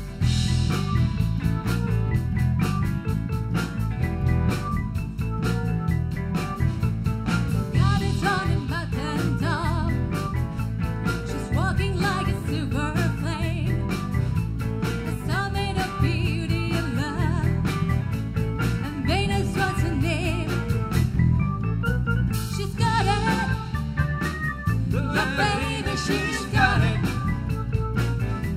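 Live band playing a song with electric guitar, bass guitar, keyboard and drums, the band kicking in loudly right at the start, with a woman singing lead.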